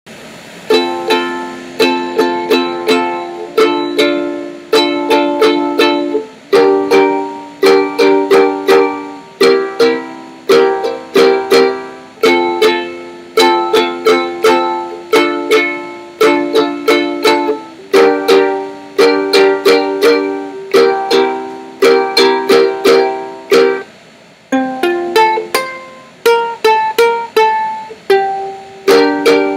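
Soprano ukulele strummed in a down-up-down-up-down-down pattern through an F, D minor, G minor, C7 chord progression, changing chord about every two seconds.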